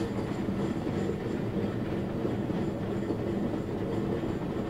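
Cumbres & Toltec narrow gauge steam train running along the track, heard from an open car: a steady rumble of wheels on rail.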